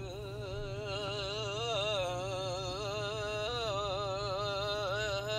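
A man's voice making a weird vibration noise, played back through a phone's speaker: one long warbling tone whose pitch wavers up and down a few times a second.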